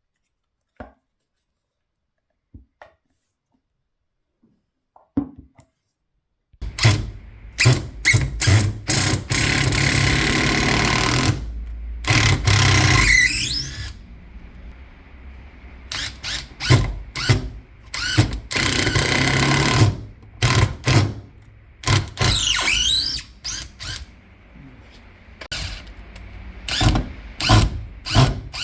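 Makita BTD140 cordless impact driver, with its new rotor fitted, run in repeated trigger bursts after a few faint clicks: its motor spins up and winds down many times, with a few longer runs in which the pitch falls and rises.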